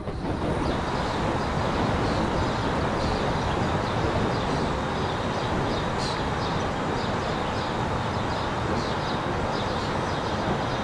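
Steady road and wind noise from a moving car, with faint high chirps repeating over it.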